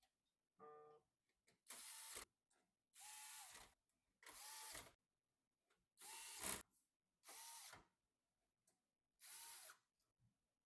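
Small electric screwdriver running in six short bursts of about half a second each, driving screws during assembly. A brief pitched buzz comes just before the first burst.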